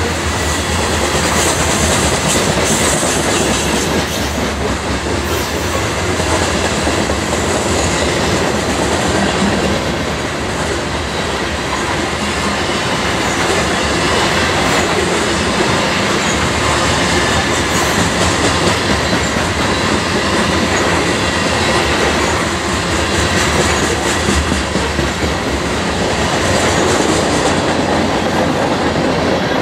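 Freight train of covered hopper cars rolling steadily past close by: a continuous rumble of steel wheels on rail, with clickety-clack as the wheels cross the rail joints.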